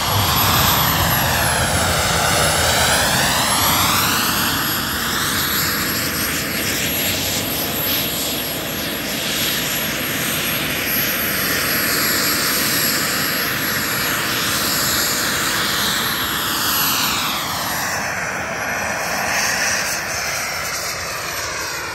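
JetCat P300 Pro model jet turbine of a Krill ARES XL running, a steady jet roar whose tone sweeps up and down as the aircraft hangs and turns low overhead. It eases slightly near the end.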